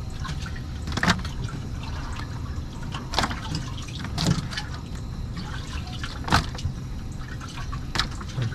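Water splashing and dripping as crappie are handled one at a time from a bucket of water, with about five sharp splashes a second or two apart over a steady low hum.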